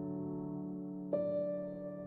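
Instrumental music with no singing: slow, held keyboard chords die away, and a new chord comes in about a second in.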